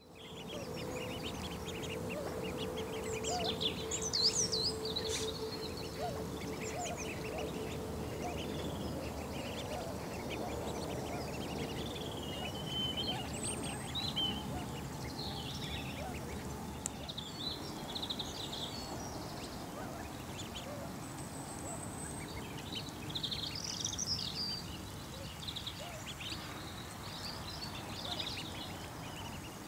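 A brood of two-week-old mallard ducklings peeping, many short high calls overlapping almost without pause.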